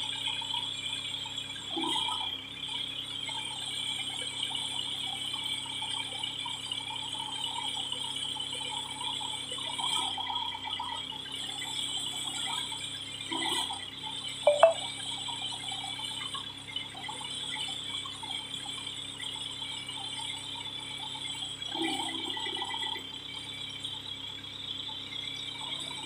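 Old backhoe loader's engine running steadily with a rattle while the backhoe boom is worked, its note swelling briefly a few times. About halfway through there is one short, sharp squeak.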